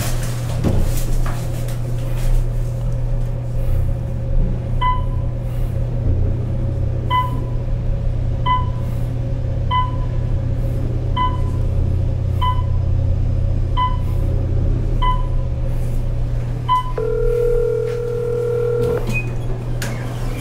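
A series of short, identical electronic beeps at uneven intervals of one to two seconds over a steady low hum, followed by one long two-note electronic tone lasting about two seconds.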